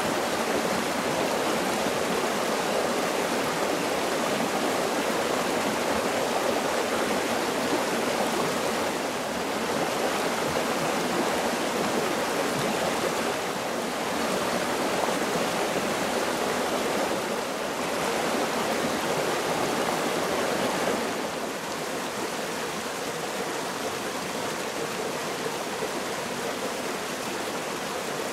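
Shallow rocky mountain stream flowing steadily over stones, a continuous rushing and babbling of water, a little quieter from about three-quarters of the way through.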